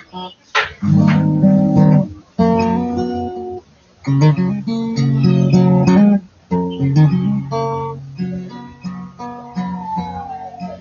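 Acoustic guitar with a capo, strummed and picked chords played in short phrases with brief pauses. Near the end a note slides down in pitch.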